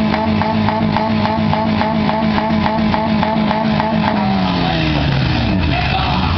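Demolition derby car engines running hard with a rapid, regular pulsing. About four seconds in, one engine's pitch falls away and settles into a lower, steady idle.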